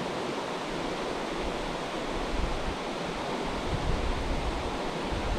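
Steady rush of a rocky mountain creek's flowing water. Low wind gusts buffet the microphone from about two-thirds of the way in.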